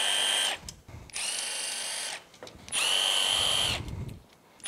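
Milwaukee FUEL cordless impact spinning out crankcase bolts that have already been broken loose, so it runs as a steady whine without hammering. It runs in short bursts of about a second each, one bolt after another.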